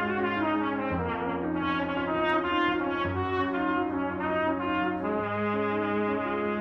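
Brass instruments playing music: low held notes and chords under a higher melody, the harmony shifting every second or two.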